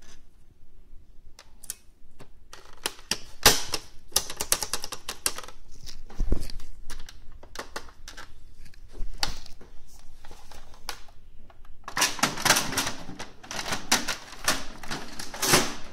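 Plastic printer parts clicking and clattering as hands fit a replacement feed roller into an OKI B6200 laser printer's paper pickup area. The clicks are scattered at first and come thick and fast near the end.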